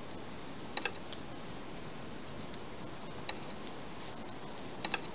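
Metal knitting needles clicking against each other as knit stitches are worked: a few light, sharp clicks at irregular intervals, some in quick pairs.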